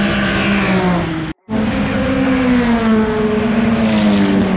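Car engines at high revs on a race circuit, their note sliding down as the cars pass. The sound cuts out abruptly for a moment about a second in.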